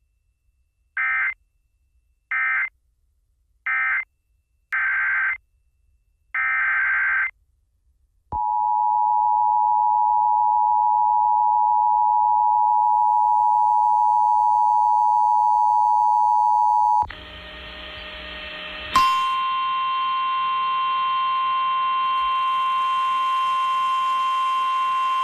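Emergency Alert System tones: three short warbling data bursts ending the previous alert, then two longer data bursts of the next alert's header. These are followed by the two-tone EAS attention signal held for about nine seconds. After a brief stretch of noise, a single steady NOAA Weather Radio warning alarm tone starts with a click about nineteen seconds in and runs on.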